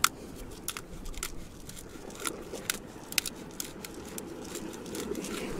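Hand salt grinder being twisted, its burrs crunching the salt crystals in a run of irregular sharp clicks, a few a second.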